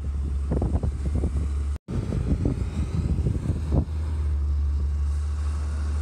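Low, steady vehicle engine rumble, with gusts of blizzard wind buffeting the microphone over the first few seconds. The sound cuts out for a moment about two seconds in.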